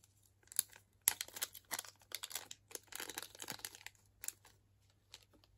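Small clear plastic bag crinkling and rustling as a pair of earrings is worked out of it, with a light click about half a second in and another near the end.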